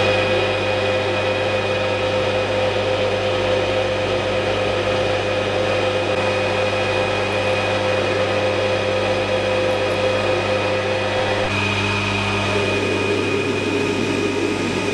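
Lathe running as a drill bit in its chuck bores into a metal block held in the toolpost: a steady motor hum with a high whine. About eleven and a half seconds in, the tone shifts as one whine drops out and a higher whine grows louder.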